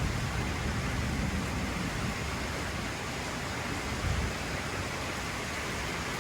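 Low rumble of thunder dying away in the first second, then a steady hiss of rain falling, with a faint low thump about four seconds in.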